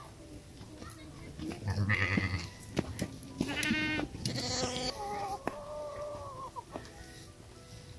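Farm animals calling several times around the middle, one call with a quick quaver.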